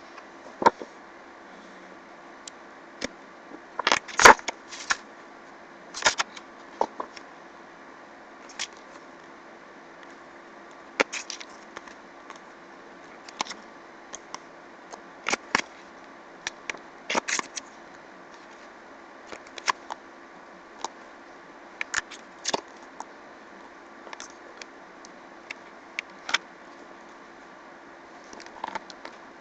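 Pages of a printed book being turned and handled: scattered short paper rustles and taps, loudest at about four seconds in, over a steady background hiss with a faint hum.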